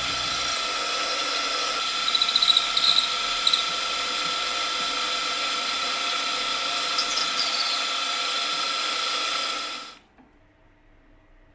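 Mini milling machine running with a steady whine as chamfering cutters cut the edges of a stepped bore in an aluminium block, with a few brief squeals from the cutter. The sound cuts off suddenly near the end.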